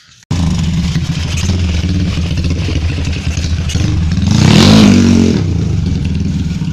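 Motorcycle engine running through an RJM racing exhaust freshly repacked with glass wool, with one rising rev about four and a half seconds in.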